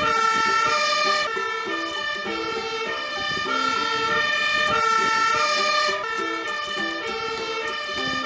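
Fire engine's two-tone siren, alternating between a high and a low note roughly every half second to second. It is sounding on an emergency run with blue lights on.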